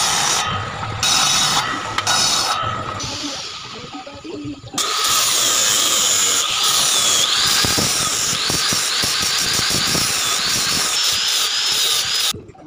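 A bench circular saw's blade cutting wood in three short bursts, then, about five seconds in, an angle grinder with a sanding disc running steadily against a round wooden chair rail, its pitch wavering as it bears on the wood, and stopping near the end.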